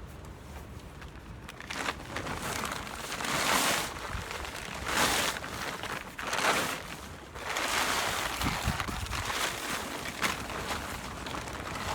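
Gusty wind blowing across the microphone, rising and falling in several surges a second or two long.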